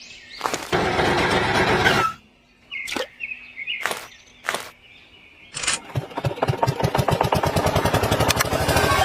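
A small engine: a short burst of running, a few sharp clicks, then it starts about six seconds in, its firing beats quickening into a steady fast putter.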